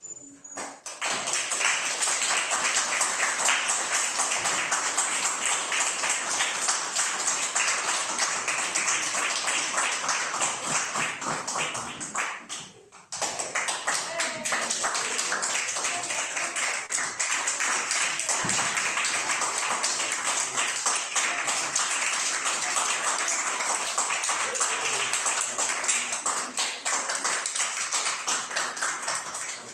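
A small audience applauding, with dense, steady hand clapping that breaks off briefly about thirteen seconds in and then resumes.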